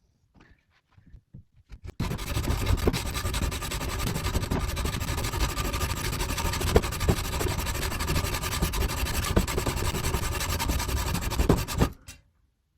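Hacksaw with a carbon-steel blade cutting through a thin metal bolt: a steady rasping saw noise starts about two seconds in and stops abruptly about a second before the end.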